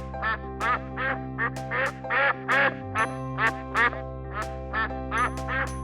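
Duck quacking in a rapid run of short quacks, over a dozen of them at about two to three a second, over steady background music.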